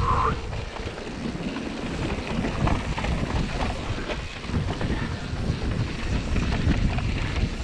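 Wind buffeting the camera microphone over the rumble of mountain bike tyres on a dirt and gravel trail, with frequent short knocks and rattles from the bike going over rough ground.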